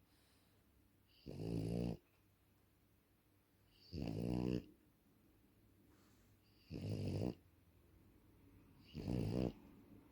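French bulldog snoring in its sleep: four buzzy snores of about half a second each, coming roughly every two and a half seconds.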